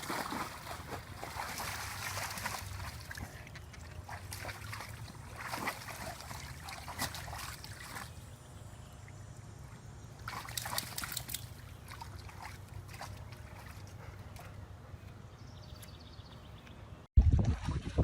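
Water sloshing and splashing in a dog's paddling pool as a dog moves through it, in irregular bursts. Near the end it cuts off abruptly and a much louder low rumble follows.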